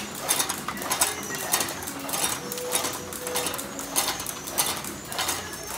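Packaging machinery running, a mechanical clatter repeating roughly twice a second, with a brief steady tone near the middle.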